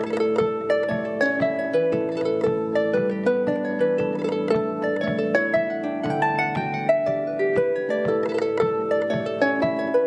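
Instrumental music: an Irish jig played on a plucked string instrument, a quick, even stream of notes.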